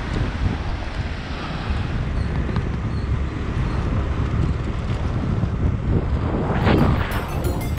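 Heavy wind buffeting the microphone, a steady low rumble, with a brief swell of sound near the end.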